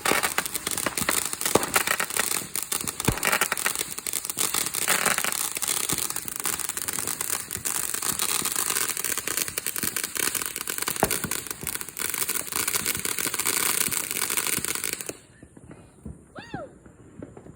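Consumer fireworks going off in a dense, continuous crackle of rapid pops for about fifteen seconds, then stopping suddenly near the end.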